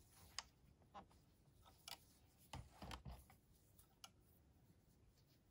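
Near silence with a few faint, scattered clicks and taps as hands tie yarn ends into knots on a plastic circular knitting machine.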